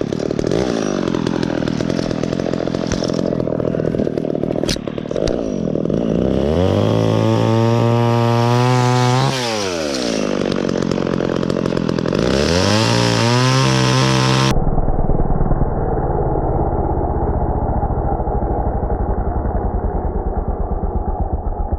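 Echo two-stroke chainsaw running, revving up to full throttle, holding there a few seconds, dropping back, then revving up again. About two-thirds of the way in, the sound turns muffled and dull.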